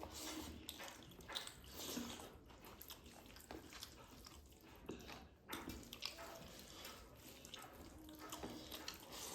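Faint eating sounds: irregular soft, wet clicks and smacks of a rice meal being eaten and chewed.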